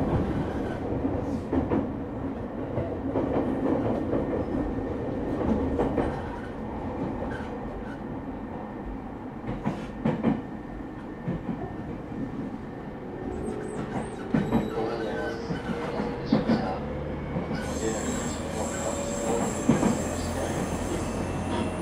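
Running sound heard inside the motor car of a JR East 209 series 0 EMU: wheel-and-rail noise with scattered rail-joint clicks. From a little past the middle a whine rises slowly in pitch as the train picks up speed, and thin high tones join it near the end.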